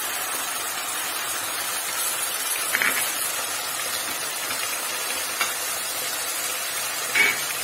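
Hot oil sizzling steadily under beef mince, browned onions and tomatoes frying in a pot, with a couple of faint taps.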